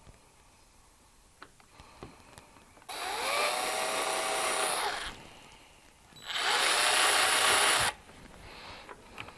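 A power drill run in two bursts of about two seconds each, the motor whining up to speed at the start of each.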